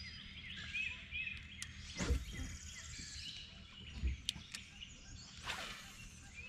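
Small birds chirping repeatedly in short, curling notes. Two low thumps come about two and four seconds in, and a short hiss about five and a half seconds in.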